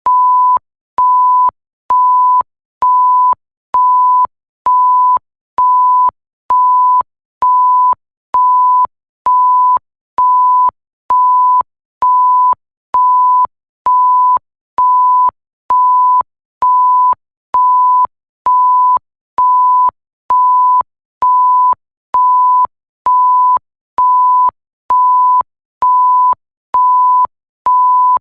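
Electronic 1 kHz bleep tone, a pure sine beep repeating evenly, each about half a second long with short gaps, a little more than one beep a second.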